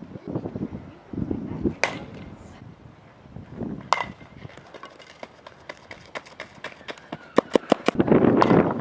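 Softball bat striking balls in batting practice: two sharp cracks about two seconds apart, the second with a brief ring. Near the end a quick run of clicks.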